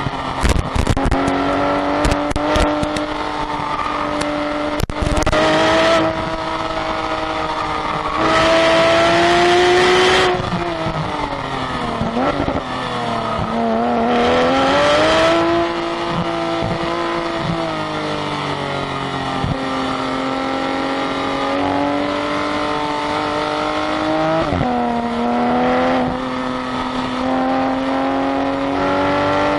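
Race-track car engine running hard on a lap, its pitch climbing slowly under power and dropping sharply at shifts or braking, about three times. A few knocks come in the first seconds, and a hiss swells up twice.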